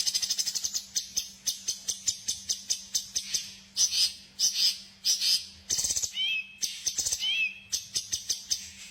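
Small songbird song: a fast chattering run of sharp high chirps, then spaced chirps about two or three a second, with two short curling whistled notes near the middle.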